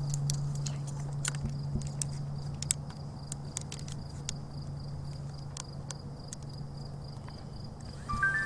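Crickets trilling steadily over a low steady hum, with scattered light clicks and rustles like steps or handling in grass. Near the end, several steady electronic tones come in one after another.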